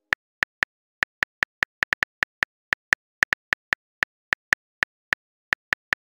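Phone keyboard typing clicks: a quick, uneven run of short sharp ticks, one for each keystroke as a text message is typed out, about four a second.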